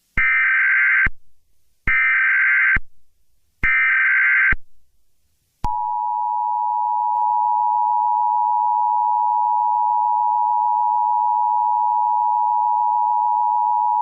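Emergency Alert System tones: three bursts of SAME digital header data, each a buzzy warble just under a second long, then, about six seconds in, the steady two-tone EAS attention signal begins.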